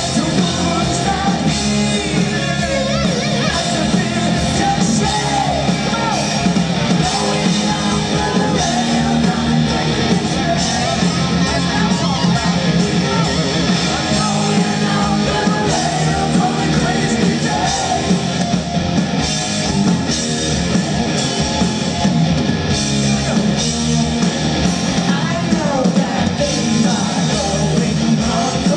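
Live rock band playing at full volume: distorted electric guitars, bass guitar and drum kit, with a voice singing over the top.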